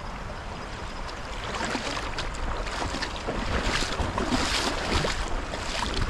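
River water rushing and splashing around a cast net as it lands and is drawn in through the shallows, with wind on the microphone. The splashing grows louder from about a second and a half in.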